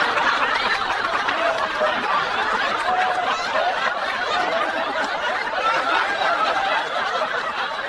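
Several people laughing and chuckling together, many voices overlapping without a break.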